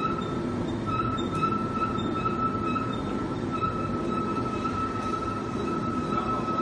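Turntable pallet stretch wrapping machine running, turning the pallet while the film carriage feeds stretch film onto the load: a steady high whine over a low mechanical rumble.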